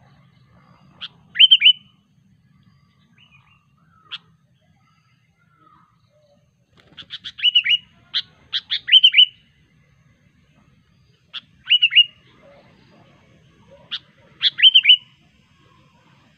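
Sooty-headed bulbul (kutilang) calling in four short bursts of sharp, quick, downslurred chirps, with pauses of a few seconds between bursts.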